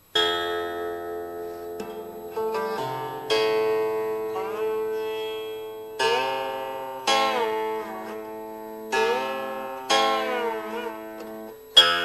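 Instrumental music on a plucked string instrument. Single notes or small clusters are struck every second or two and left to ring and fade, and some of them bend in pitch after the pluck.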